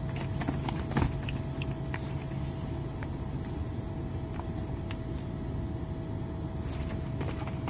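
Electric blower inflating a bounce house, running with a steady hum, a faint whine and hiss. A few light knocks from the puppy moving about the inflated vinyl and balls can be heard, the loudest about a second in.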